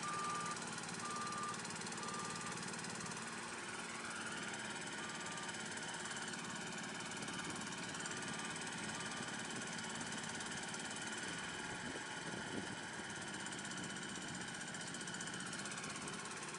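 A spider crane's small engine running steadily. A warning beeper sounds about once a second at the start and fades out within the first several seconds.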